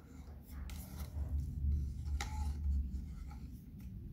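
Nikon DR-5 angle viewfinder being screwed into and turned on a Nikon F2's eyepiece: light scraping, rubbing and a few small clicks of handling, over a low rumble of the camera being held.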